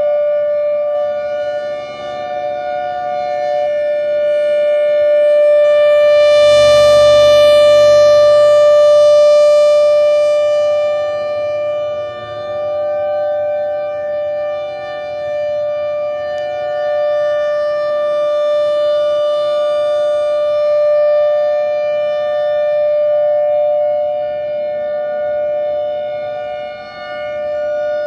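Federal Signal Thunderbolt 1000A rotating outdoor warning siren sounding one steady tone, loud and close. Its level swells and fades as the turning horn sweeps past, loudest about a quarter of the way in and again about three quarters in.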